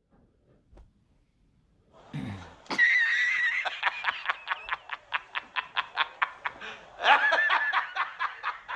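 After about two seconds of near silence, high-pitched laughter breaks out in rapid, even pulses of about five a second. It swells again in a louder burst near the end.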